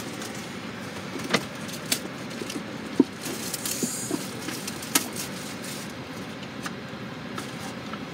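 A metal collector's chest tin being opened and handled: several sharp clicks and knocks of the clasp and lid, and a brief rustle, over a steady background noise.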